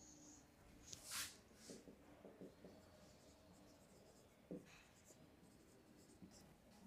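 Faint strokes of a marker writing on a whiteboard, a few scattered scratches and ticks with a short hiss about a second in.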